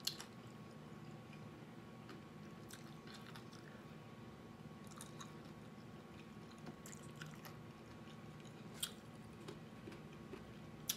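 Close-miked chewing and mouth sounds from eating a hard-shell chicken taco: faint wet chewing with scattered crisp clicks, and a sharper click just after the start and another near the end.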